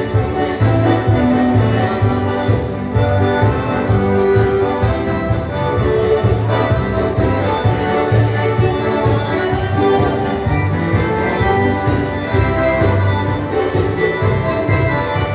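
Dance band playing an instrumental passage of gaúcho-style dance music, led by accordion over a steady bass beat.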